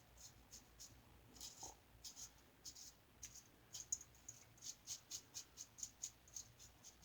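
Star Super Six single-edge razor with a Gem blade cutting lathered stubble: faint, short, scratchy strokes, irregular at first, then coming quicker at about three a second in the second half.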